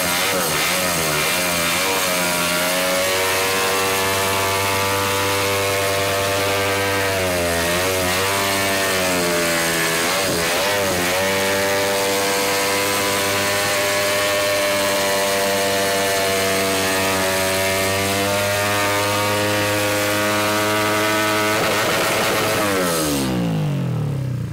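Honda Grom's Koso 170cc big-bore single-cylinder engine held at high revs through a Hindle exhaust during a rear-tire burnout. The revs waver twice, then fall away sharply near the end.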